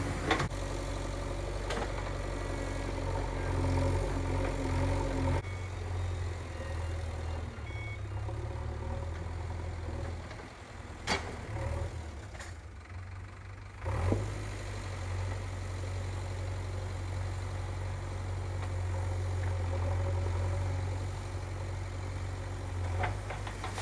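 JCB 3DX backhoe loader's diesel engine running steadily at low revs, with a few sharp knocks now and then. The engine sound drops away for a few seconds about halfway and comes back abruptly with a knock.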